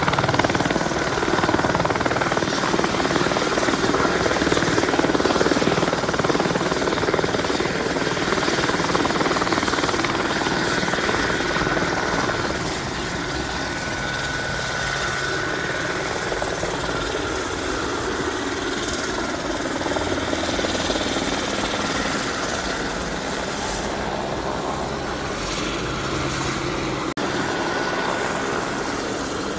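Police helicopter's rotor and turbine running as it hovers low over the water, a continuous heavy beating drone that eases a little after about twelve seconds.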